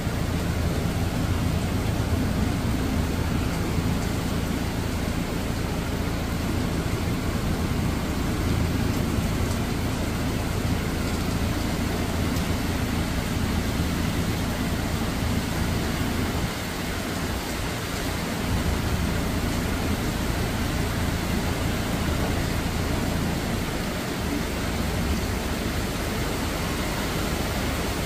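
Typhoon rain and wind: a steady hiss of rain on the foliage with a deep rumble underneath.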